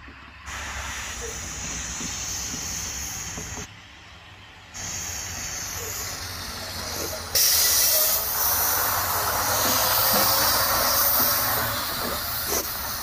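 Automated side-loader garbage truck running on the street: a steady hiss over a low engine hum, which jumps louder and brighter about seven seconds in.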